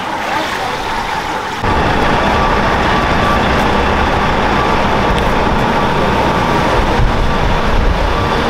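Street traffic noise: a steady rumble of cars and trucks on the road. It cuts in suddenly about one and a half seconds in, after a quieter stretch.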